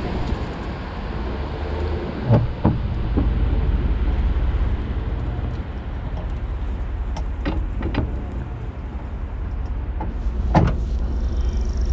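Pickup truck engine running slowly as it tows a rotted hay bale on a tow strap over rough grass, a steady low rumble. Several sharp knocks and clunks come through it, the loudest about two seconds in and near the end.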